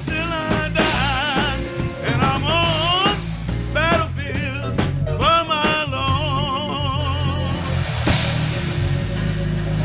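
Band music with a singer's voice held in wide vibrato over bass and drums; the singing stops about six seconds in and the band plays on.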